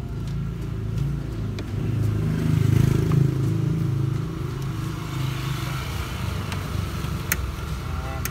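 A motor vehicle engine running close by, a steady low rumble that swells about two and a half seconds in and then eases off. A couple of sharp clicks near the end.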